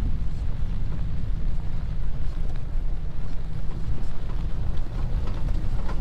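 Steady low rumble of a truck driving along a snowy off-road trail.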